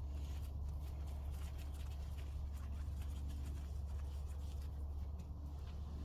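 Crackling and scratching of soil and a grow bag being handled by hand, many small irregular rustles over a steady low hum.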